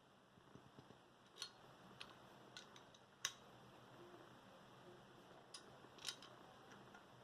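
A handful of short, sharp clicks and snips from small hand tools or metal parts being handled, scattered irregularly over a quiet background; the loudest is about three seconds in.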